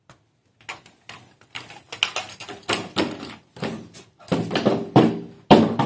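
Wooden string marionette's feet tapping and clattering on the puppet-stage floor as it is walked on, several quick taps a second. From about four seconds in, wordless vocal sounds join the taps.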